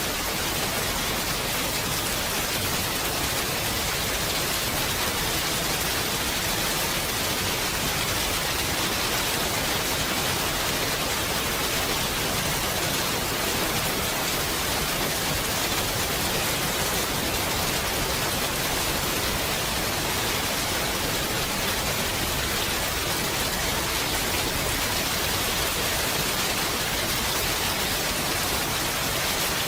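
Steady, unbroken rainfall: an even hiss of rain with no separate drops or thunder standing out.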